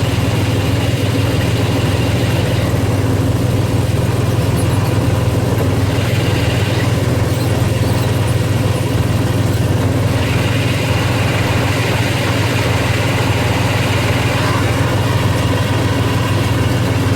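A 2000 Jeep Wrangler's 4.0 straight-six idling steadily, with a higher whirring in the mix. The whir sounds from start-up and goes away when the clutch is pressed.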